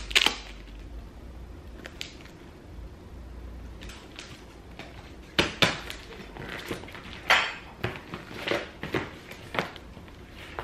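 Cardboard shipping box being opened by hand: a couple of sharp rips at the start, then the flaps pulled open with short scrapes and rustles of cardboard from about five seconds in.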